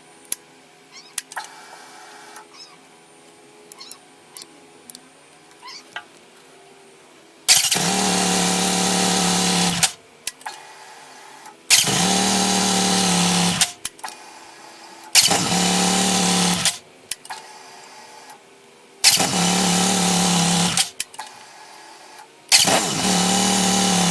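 Yamaha XT1200Z Super Ténéré parallel-twin engine started five times in a row, catching at once each time, running steadily for about two seconds and then switched off. Small clicks come between the starts. It shows no sign of hard starting.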